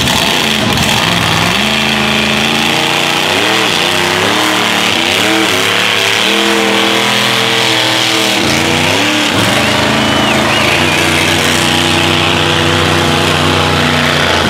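A mud-bog pickup truck's engine revving hard, its pitch climbing and dropping several times, then held high and steady for the last few seconds.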